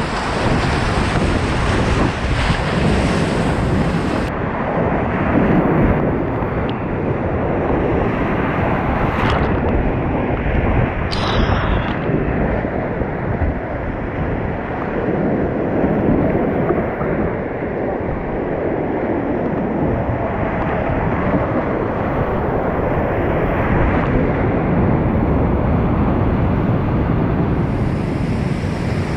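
Loud, steady rush of whitewater rapids on a steep creek, heard from a kayak as it runs through them.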